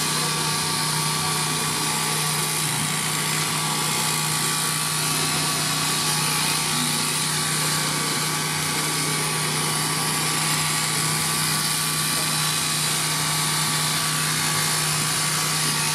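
Electric shearing machine running steadily while shearing vicuña fleece: a continuous, even motor whir with a constant hum.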